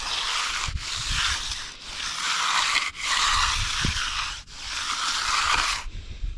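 Steel hand finishing tool scraping across the surface of a setting concrete slab along its edge, in five long strokes of about a second each with short pauses between.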